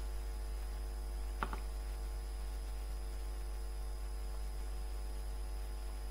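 Steady electrical hum with a faint high-pitched whine, the background noise of the recording setup, with one brief click about a second and a half in.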